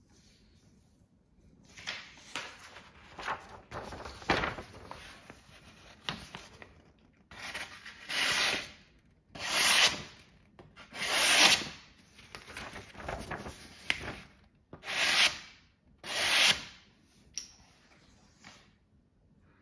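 Paper being sliced with a Smith & Wesson Extreme Ops folding knife blade. There is soft rustling and scraping at first, then about six louder scraping slicing strokes, each under a second, from the middle on. It is a paper-cutting test of the blade's edge.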